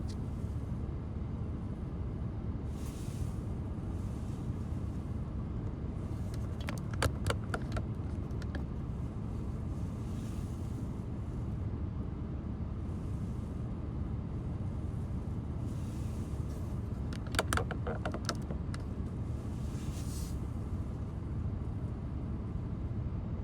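Steady low rumbling vehicle noise, with two short bursts of rattling clicks, about 7 and 17 seconds in.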